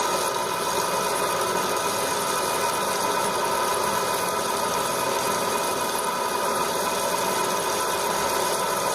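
Industrial machine running steadily: a constant mechanical hum and noise with a few high, steady whining tones held at one pitch throughout.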